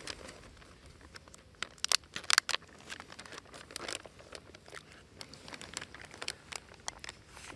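Plastic zip-lock bag crinkling and rustling in irregular crackles as it is handled and lowered into water, loudest about two seconds in.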